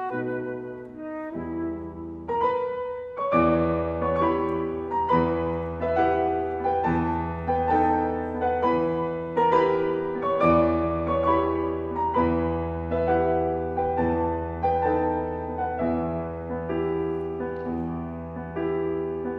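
Concert grand piano playing a solo passage in a flute-and-piano fantasy: regularly pulsing chords over a strong low bass.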